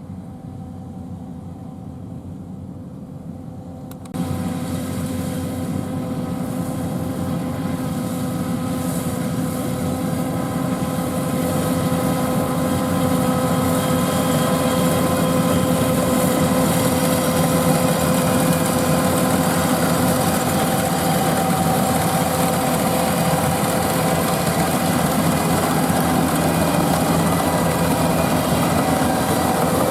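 A rice combine harvester's diesel engine running steadily. It jumps louder about four seconds in, then grows louder over the next ten seconds and holds steady.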